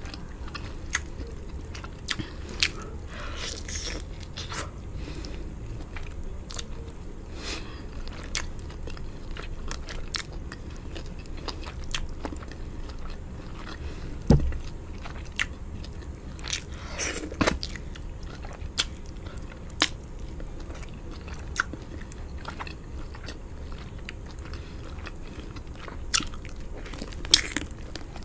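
Close-miked mouth sounds of a person eating rice with palava sauce and chicken drumstick by hand: chewing and biting, with wet smacks and sharp clicks scattered throughout. The loudest clicks come about halfway through and near the end.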